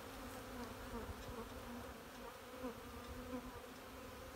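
Honeybees buzzing in large numbers, a steady hum whose pitch wavers slightly as individual bees fly close.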